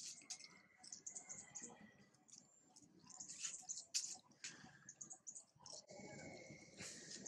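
A macaque biting and chewing a green fruit: a faint run of small crunches and clicks, with one sharper bite about four seconds in.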